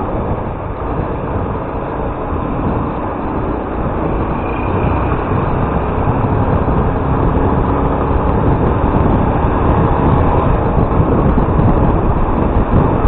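Motorcycle on the move: steady engine, road and wind noise, growing a little louder toward the end.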